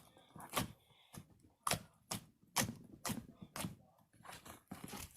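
Slime being kneaded and stretched by hand, giving a series of short, sharp sticky pops and clicks, about one every half second.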